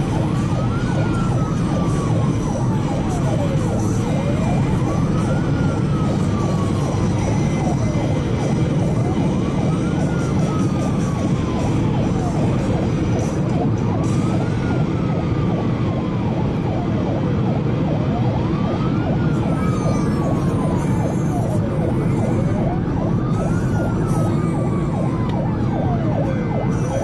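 Emergency response car's siren sounding a slow wail, each cycle rising quickly and falling slowly, about every four and a half seconds. It is heard from inside the car's cabin over steady road and engine noise while the car is driven to a call.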